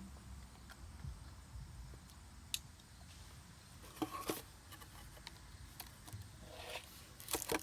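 Plastic wrapping on a new set of brake pads being handled and cut open: faint, scattered crinkles and clicks, a few around the middle and more near the end, over a low hum.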